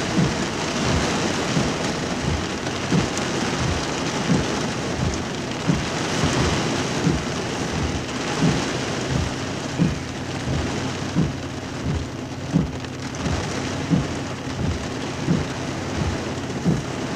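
Heavy storm rain pelting a car's windshield and roof, heard from inside the car as a dense, steady hiss. Low thumps come about once a second.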